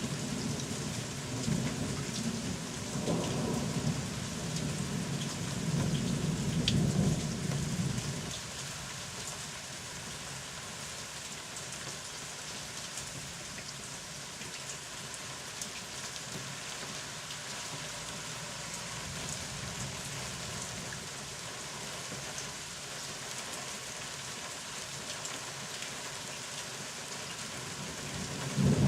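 Steady rain with rolling thunder rumbling through the first eight seconds or so, then rain alone; another thunder rumble begins at the very end.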